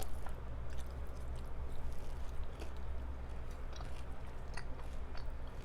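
Close-up chewing of crispy fried chicken dipped in nacho cheese, with many small scattered crunches, over a steady low hum from a room fan.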